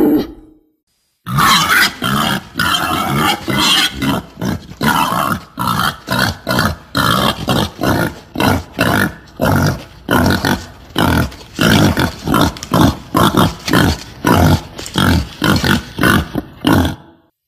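Female wild boar grunting in a long, rapid series of short grunts, about two a second, starting after a brief silence about a second in and stopping just before the end.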